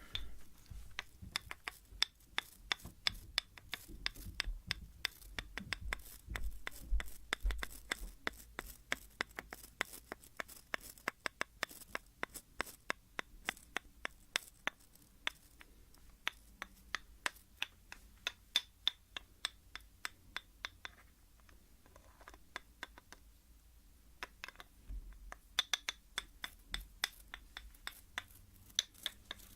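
Hair comb tapped on wood while a hairbrush is drawn across its teeth: a rapid run of sharp clicks and taps. The clicks thin out into a lull of a few seconds about three-quarters through, then pick up again.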